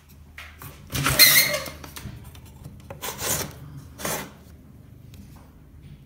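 A window sash sliding in its frame, giving scraping rubs over a low steady hum. The loudest rub comes about a second in and lasts most of a second. Two shorter ones follow, at about three and four seconds.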